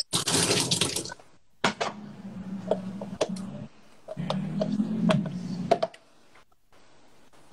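Kitchen cooking noise: a short hiss in the first second, then scattered clicks and taps of a knife on a plastic chopping board and a metal spoon against a frying pan.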